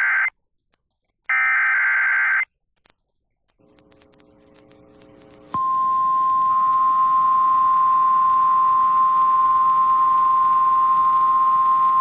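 Emergency Alert System alert relayed over FM radio. It opens with the end of one harsh digital SAME header burst and a final burst of about a second, then a pause of about three seconds. About five and a half seconds in, the long, steady attention tone starts and holds.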